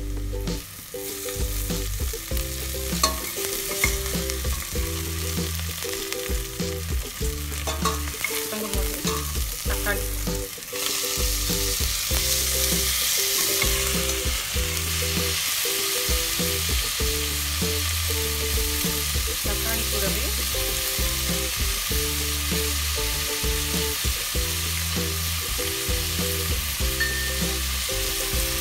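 Chopped onions and curry leaves frying in oil in a stainless steel pot, sizzling steadily, while a slotted metal spoon scrapes and clinks against the pot as they are stirred. About eleven seconds in, the sizzle gets louder and stays so once chopped tomatoes are in the pan.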